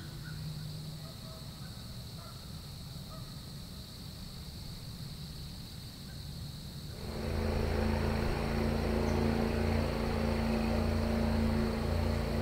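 A steady high drone of insects, crickets, in quiet woods. About seven seconds in, background music with low sustained tones starts and becomes the loudest sound.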